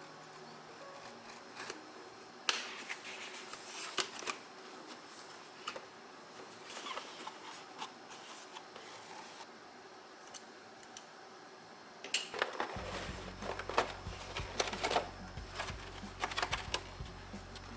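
Headphone packaging being opened: irregular clusters of crisp snipping, scraping and clicking, with a low steady hum joining near the end.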